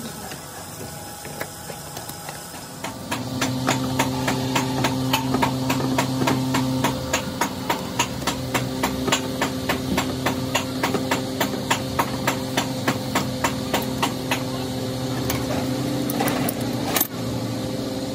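Quick, even tapping, about four strikes a second, over a steady low machine hum, with one louder crack near the end.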